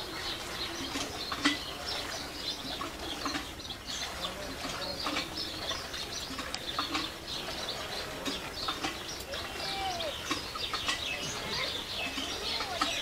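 Milk squirting in short irregular spurts into a pot as a cow is milked by hand, with birds chirping and a dove cooing around it.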